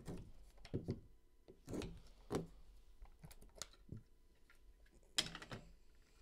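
Hard plastic card case being opened by hand and trading cards handled and flipped: a scattered string of light plastic clicks and rustles, with a louder rustle about five seconds in.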